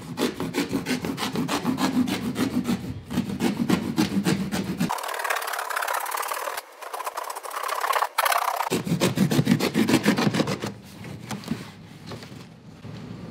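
A knife blade slitting lengthwise through a corrugated cardboard box: a fast, even run of scratchy cutting strokes that thins out near the end.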